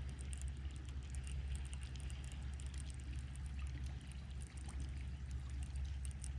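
Creek water running and trickling, with many small irregular splashes over a steady low rumble.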